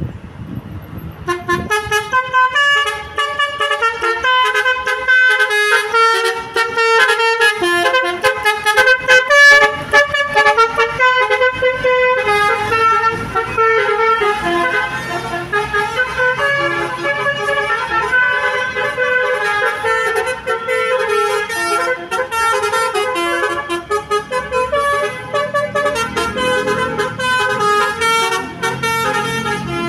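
Basuri V3 telolet horn, a multi-tone musical vehicle horn, playing a fast melody of changing notes. It starts about a second in and keeps playing.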